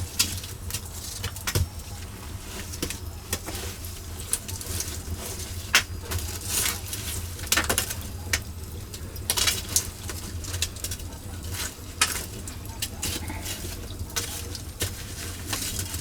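Dishes and cooking utensils clinking and clattering irregularly as they are handled, over a steady low hum.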